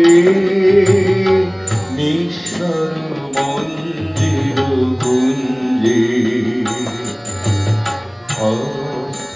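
Instrumental interlude of a Bengali song: harmonium carrying the melody over tabla, with small hand cymbals ticking in steady time. A sung note held over from the previous line dies away in the first second or so.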